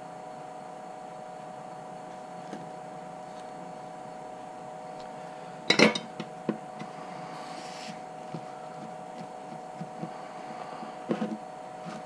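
Tools and objects being handled on a workbench: a loud clatter of knocks about six seconds in, then a few lighter knocks and another short clatter near the end, over a steady electrical hum.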